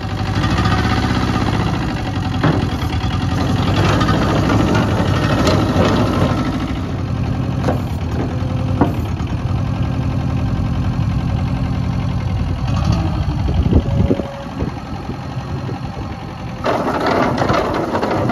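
Engine of a KL Truck feed truck running steadily, with a few sharp metallic knocks. Near the end a louder rattling clatter joins in.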